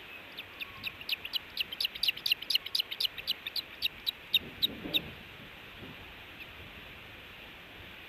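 Osprey calling: a rapid run of short, sharp chirps, about five a second, that stops abruptly about five seconds in.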